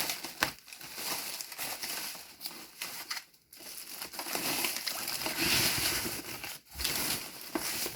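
Packaging crinkling and rustling in irregular handling as a computer monitor is unwrapped from its box, with two brief pauses.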